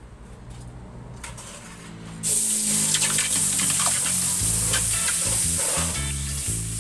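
Coconut milk poured from a bowl into a hot wok, hissing and sizzling as it hits the metal; the hiss starts suddenly about two seconds in and eases off near the end.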